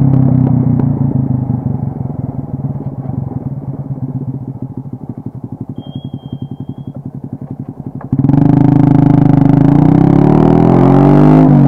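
Modenas underbone motorcycle's engine and exhaust winding down off the throttle as the bike slows, settling into an even, rapid low-rev pulsing. About eight seconds in the throttle opens sharply and the engine revs loudly with rising pitch, dipping briefly near the end at a gear change.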